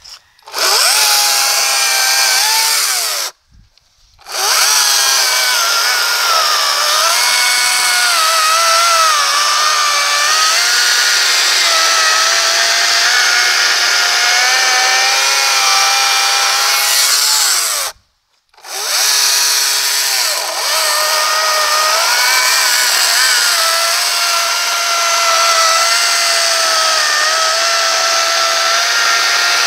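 Greenworks 40-volt cordless electric chainsaw cutting through a fallen tree trunk: a motor whine with chain rasp, its pitch dipping and recovering as the chain loads up in the wood. It stops for about a second twice, about three seconds in and again near eighteen seconds, then runs on.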